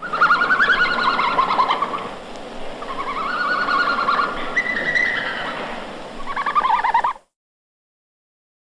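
Red panda (Ailurus fulgens) calling: a string of high, rapidly trilled, wavering calls, four or so in a row, that stops abruptly about seven seconds in.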